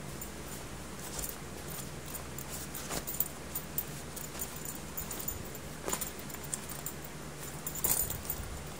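Polyester backpack being handled: fabric rustling, with a few short clicks and jingles from its hardware, over a steady low hum.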